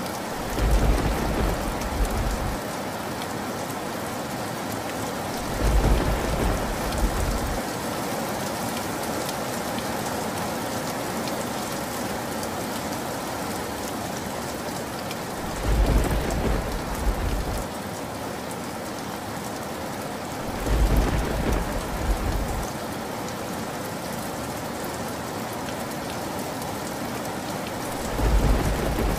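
Steady rain with short, low rolls of thunder breaking in five times, each lasting about two seconds.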